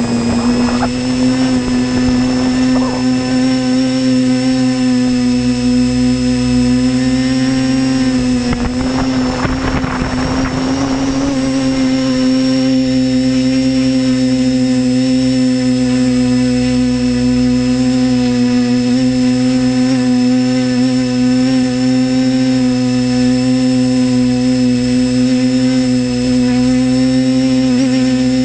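Drone's electric motors and propellers whining at one steady pitch, heard from the drone's own onboard camera, with a short rush of noise about eight to eleven seconds in.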